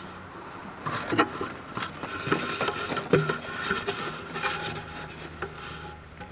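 Irregular footsteps on snow-covered lake ice, mixed with the rustle of a nylon jacket rubbing against the handheld camera.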